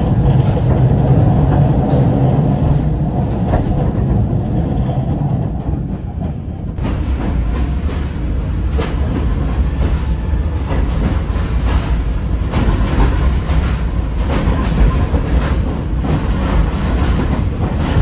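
Passenger train running along the track, heard from its rear observation carriage: a steady rumble of wheels on the rails. About seven seconds in, the train enters a tunnel and the sound turns suddenly to a deeper rumble with frequent clacks.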